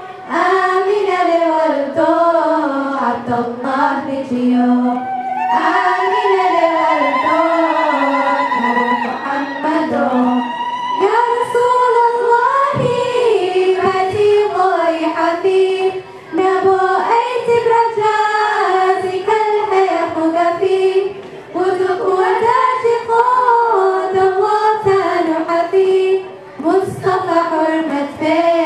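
Girls' voices singing a Harari devotional song (manzuma) into microphones, the melody winding up and down with some long held notes.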